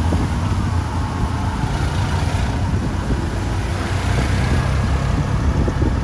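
Road traffic noise: a vehicle engine running loud and steady, with the hiss of tyres on a rain-wet road.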